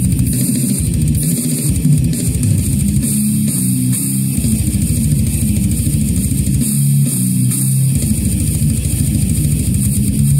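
Brutal death metal demo: heavily distorted electric guitar riffing over fast drums with constant cymbals, the rapid low kick-drum strokes dropping out and returning several times.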